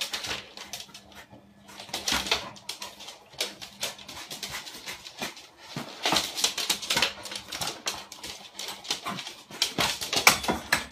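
A flat mop pad swishing back and forth across a wooden floor while a corgi tussles with it, with scrabbling and sharp clicks between the swishes.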